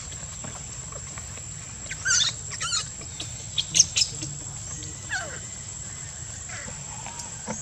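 Baby macaque squealing in short, high, wavering cries: a pair about two seconds in, a few sharper cries around four seconds, and a falling call near five seconds. A steady high insect drone runs underneath.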